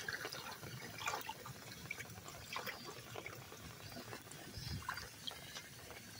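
Water trickling and dribbling away into a drain that has just been unclogged, a faint irregular patter of small drips and splashes.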